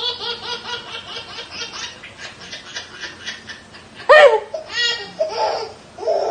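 Laughter: a run of quick repeated ha-ha pulses, then a loud, high squealing laugh about four seconds in, followed by more laughing.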